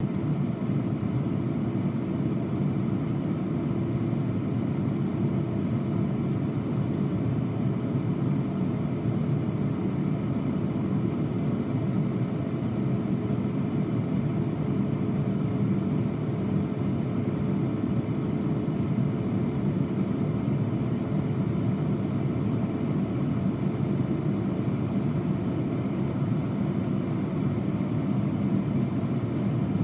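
Air fryer running: a steady, unchanging low whir from its fan, with a faint steady hum in it.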